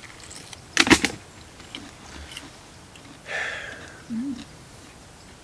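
A person biting into a piece of food, a sharp crunch about a second in, then chewing.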